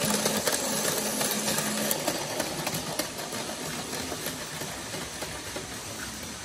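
Battery-powered Plarail Advance toy trains running on plastic track: small electric motors whirring, with a dense patter of clicks from the wheels and gears. The sound grows gradually quieter.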